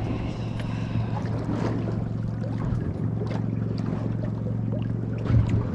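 Boat motor idling steadily, a low even hum, with a few light knocks on the boat.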